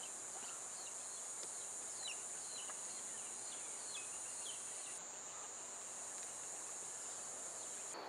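A steady, high-pitched chorus of insects. For about the first five seconds it is overlaid with repeated short, falling bird chirps.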